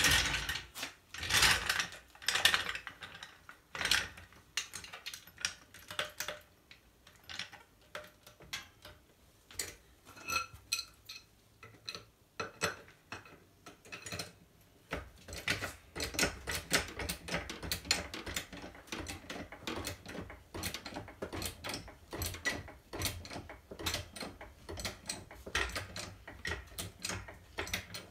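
Hydraulic floor jack being set in place with a few loud metal clanks, then pumped by its long handle, clicking and clanking in a steady rhythm from about halfway as it raises the car.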